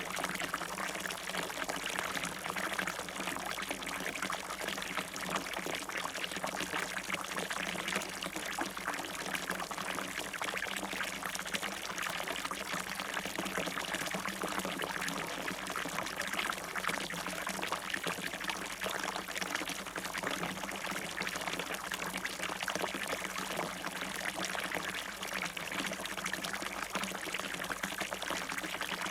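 Water falling and splashing in a fountain, a steady continuous splashing and pouring.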